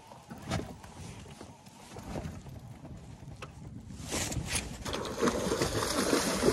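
Water splashing and wind on the microphone around an inflatable boat, rising to a louder rushing noise about four seconds in. A few faint clicks come earlier.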